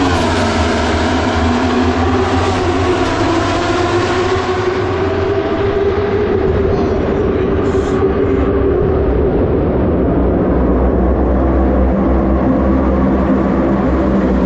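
Superbike engine running loudly. Its pitch drops sharply right at the start, then holds fairly steady and sinks slowly through the middle.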